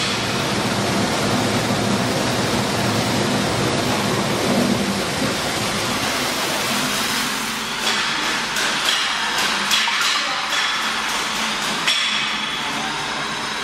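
Soybean grits milling machine running with a steady, loud mechanical noise. About seven seconds in, the low hum drops away and a run of sharp clicks and rattles comes through.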